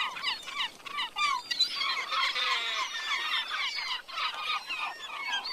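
A flock of gulls calling: many short, overlapping cries that bend up and down in pitch, going on without a break.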